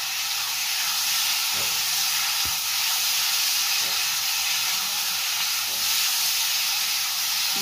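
Potatoes, flat beans and spice paste frying in oil in a steel kadai, a steady sizzle, while a metal spatula stirs them with a few faint scrapes and knocks against the pan.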